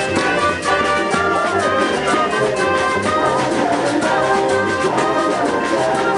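Brass band music, with trumpets and trombones playing held notes over a steady drum beat.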